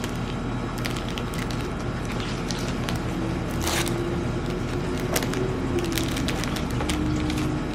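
Clear cellophane cookie bags crinkling and rustling in the hands as cookies are slipped in and the bags folded shut, in short irregular crackles with a sharper one about halfway through, over a steady low hum.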